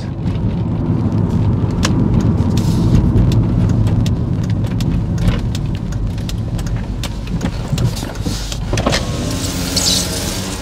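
A 2005 Ford Escape with its engine running as it creeps forward a short distance, with scattered light clicks. Near the end a motor whine starts as the power window begins to go down.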